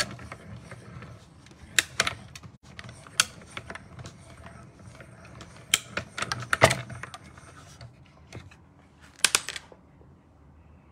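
Hand-cranked die-cutting machine rolling a stack of plastic cutting plates through, with scattered clicks and clacks as the plates feed and are handled; a cluster of clacks near the end as the plates come out.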